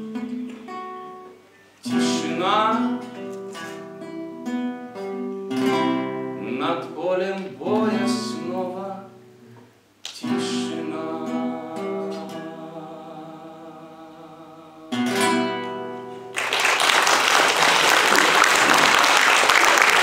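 Classical guitar playing the closing bars of a ballad while a tenor voice sings held, wavering notes over it. A final chord rings out about fifteen seconds in, and applause breaks out a second later.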